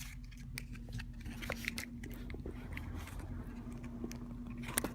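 Small crinkles, clicks and rustles of the iPhone box's accessory packaging being handled and pulled at, with a faint steady hum underneath.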